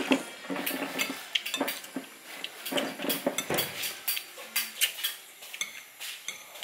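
Spoons and forks clinking and scraping against plates and bowls while people eat: many irregular sharp clicks.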